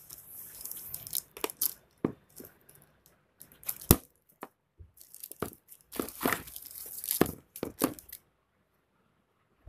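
Plastic packaging bags crinkling and cardboard rustling as accessories are handled inside a laptop box, with a sharp click about four seconds in; the handling stops about eight seconds in.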